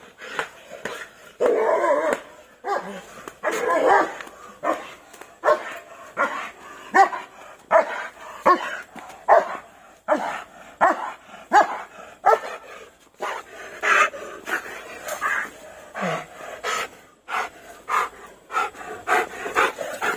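German Shepherd Dog barking aggressively at a stranger over and over, loud sharp barks coming a little faster than one a second, in denser bursts during the first few seconds.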